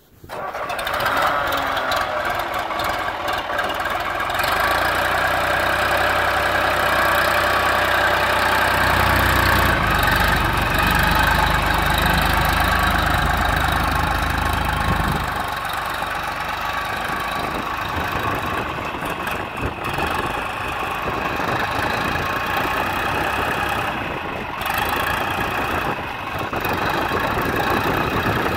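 1973 John Deere 301 tractor's engine running steadily as the tractor is driven around, with a stronger low rumble for about ten seconds in the middle.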